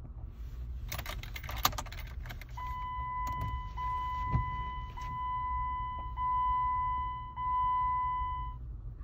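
Rattling and clicks, then a steady high electronic beep that goes on for about six seconds, broken by a short gap roughly every second, over the low rumble of a vehicle cabin.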